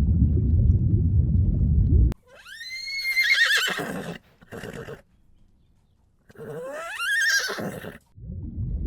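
A horse whinnying twice, about four seconds apart, each call rising sharply and then wavering and falling. A low rumble fills the first two seconds before the first whinny.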